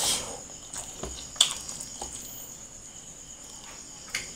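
Close-up eating sounds of a person chewing rice and curry by hand: soft wet chewing with a few sharp mouth clicks, about a second and a half in and again near the end, over a steady high trill of night insects such as crickets.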